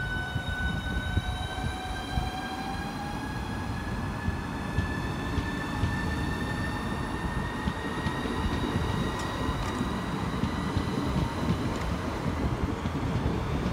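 Southeastern Highspeed Class 395 electric multiple unit moving off along the platform. Its traction motors give a whine that rises slowly in pitch as it gathers speed, over a low rumble of wheels on the rails.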